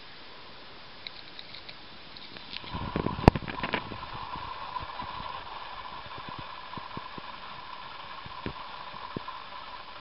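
Hamster gnawing at a peanut in its shell: a run of crunches and clicks about three seconds in, the loudest a single sharp crack of the shell, then scattered small clicks as it keeps nibbling.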